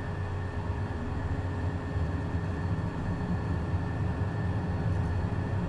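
Beechcraft Premier I jet's Williams FJ44 turbofan engine running, heard inside the cockpit: a steady low rumble with a thin steady whine on top, growing a little louder about two seconds in.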